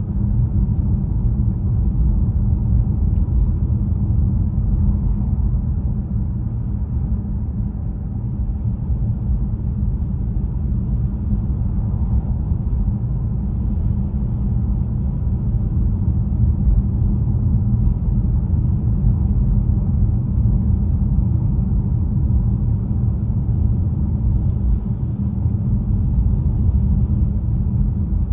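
Steady low road and tyre rumble heard inside a moving car's cabin.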